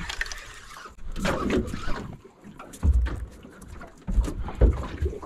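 Knocks and dull low thuds in a small aluminium dinghy as people shift and step about in it, with light rattles and clicks. The heaviest thuds come in the second half, three of them about a second apart.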